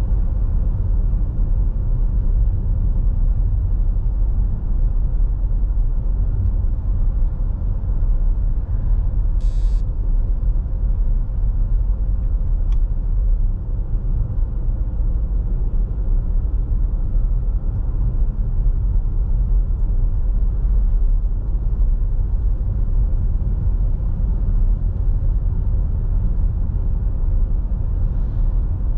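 Steady low rumble of a car driving along a paved road, road and engine noise heard from inside the cabin. A brief high-pitched sound stands out about nine seconds in.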